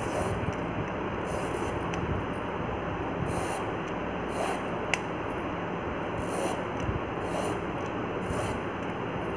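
A rabbit nibbling and tugging at a leaf, with short crisp rustles about once a second and a single sharp click about halfway through, over a steady background hiss.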